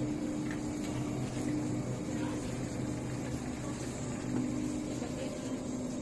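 Steady hum of the store's refrigerated display coolers, with a low drone and a couple of held tones that fade in and out.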